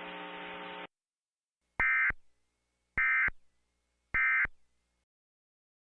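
Emergency Alert System end-of-message code: three short, identical digital data bursts about a second apart, signalling that the broadcast alert is over. Before them, a steady hum left from the message cuts off just under a second in.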